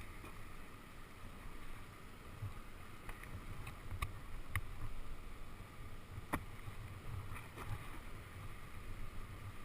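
Outdoor ambience around a kayak on the water: a steady low wind rumble on the microphone, with several short, sharp clicks or light knocks scattered through, such as a paddle or gear touching the kayak.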